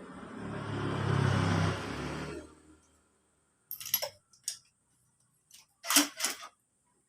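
A rushing noise swells and dies away over the first two and a half seconds. Then come a few sharp metallic clinks, two small clusters, of tools and engine parts being handled while a scooter engine is stripped down.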